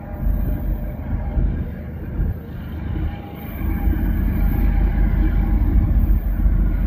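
Diesel locomotives of a Kansas City Southern freight train approaching, their engines running with a low rumble that grows louder about three seconds in.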